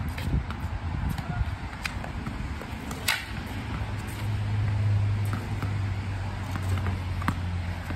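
Tennis ball being hit against a stone wall and bouncing on wet ground: a string of sharp, irregular pops from racket, wall and ground, the loudest about three seconds in. Under them runs a steady low rumble that swells for a couple of seconds in the middle.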